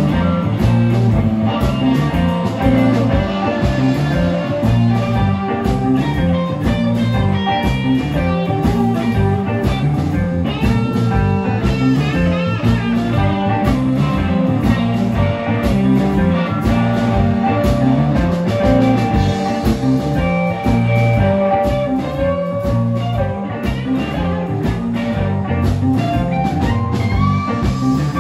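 Live electric blues band playing: a lead electric guitar plays bending, wavering lines over a steady drum and bass groove, ending on a long held note near the end.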